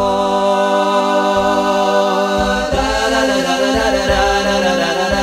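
A cappella nasheed: a male voice sings a long, drawn-out 'Allah' over held humming voices, and more voices come in about two and a half seconds in.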